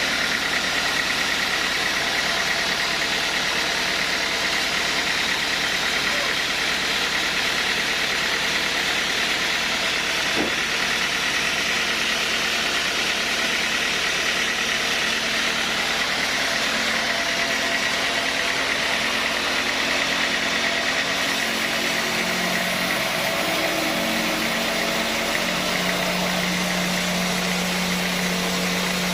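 Sawmill machinery running steadily: a continuous engine-like drone with a strong high hiss, its low hum shifting in pitch in steps over the last several seconds.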